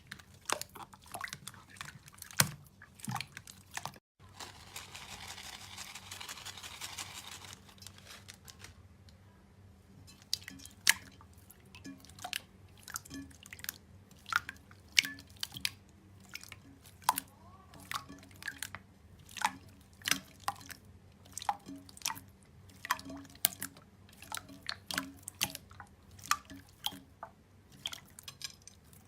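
Slime being squeezed and pressed by hand, making irregular wet, sticky clicks and pops about one to two a second. For a few seconds near the start there is a steady hissing crackle instead.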